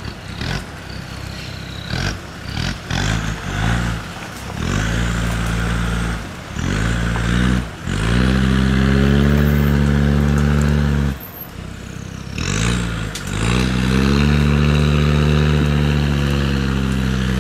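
Land Rover Discovery TD5's tuned five-cylinder turbodiesel revved hard in repeated bursts as the truck spins its 37-inch mud tyres through deep mud. The bursts are short in the first half, then the engine is held high and steady twice for about three seconds each.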